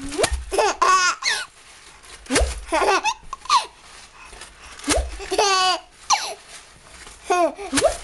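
A baby laughing in repeated high-pitched bouts, about five in all, each a quick string of gasping 'ha' sounds, with short breathy pauses between them.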